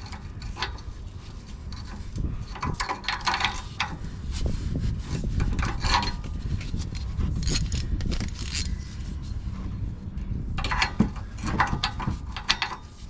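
Ratchet and socket clicking and scraping in irregular bursts as a new downstream oxygen sensor is screwed into the exhaust pipe.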